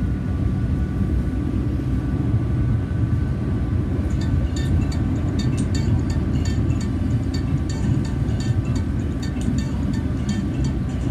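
Rapid-transit train running, heard from inside the car: a steady low rumble with a faint steady whine. From about four seconds in, quick irregular clicking and ticking joins it.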